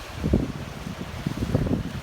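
Wind buffeting the microphone in irregular low rumbling gusts over the steady hiss of ocean surf breaking on a beach.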